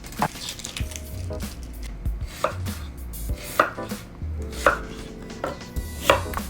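Knife chopping on a cutting board in separate strokes, roughly one a second and unevenly spaced.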